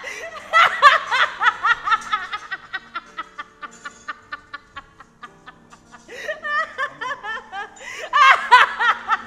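A woman laughing hard: a fast run of high-pitched ha-ha-ha pulses that tails off about halfway through and breaks out again near the end, over quiet background music.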